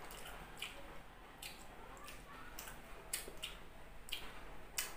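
Close eating sounds: a person chewing a mouthful of rice and eggplant omelette, with soft wet smacks and clicks coming irregularly about once or twice a second.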